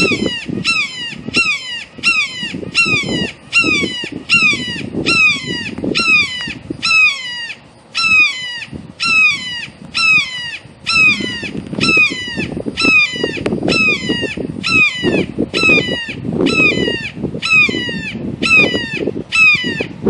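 A perched bird of prey calling over and over: a loud, harsh scream repeated about once a second, each call sliding down in pitch.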